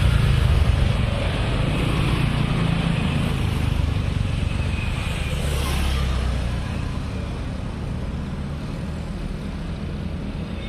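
Motor scooters and small motorcycles riding past one after another, their engines loudest in the first six seconds and then quieter.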